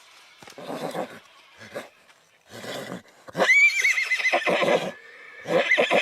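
Horse whinnying. Two short breathy sounds come first, then a loud, high, wavering call about three seconds in breaks into a quick fluttering run. A second whinny starts near the end.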